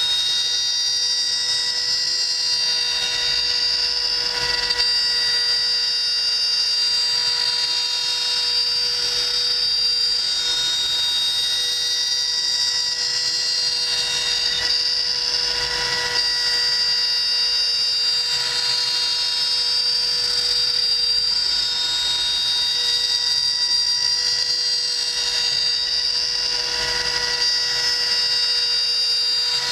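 CNC router spindle running with a steady high whine while its cutter mills hardwood, the rush of the cut swelling now and then as the tool moves through the part.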